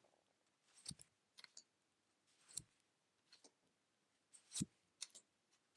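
Faint, sparse clicks and taps of tarot cards being handled and laid down, about half a dozen spread a second or so apart, the loudest a little after four and a half seconds in.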